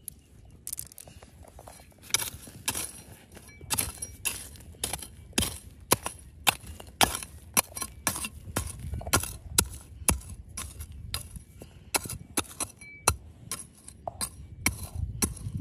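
A metal tool striking rock over and over, about two sharp clinking strikes a second.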